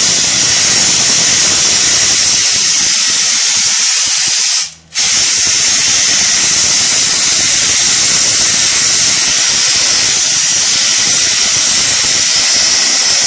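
Wet abrasive-blasting nozzle spraying at full pressure, fed from a 100-kilo blast pot 100 feet away: a loud, steady hiss that breaks off for a moment about five seconds in.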